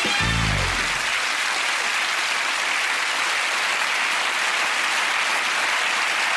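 Studio audience applauding steadily, with the last notes of music dying away about a second in.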